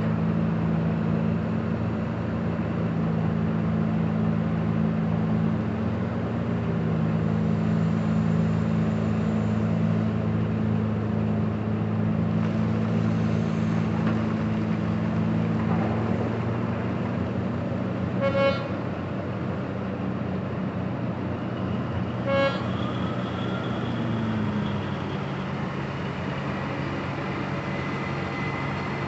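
Diesel engine of a Komatsu PC2000 hydraulic excavator running steadily while it loads a haul truck, its note shifting a few times as it works. A horn gives two short toots about four seconds apart, roughly two-thirds of the way through.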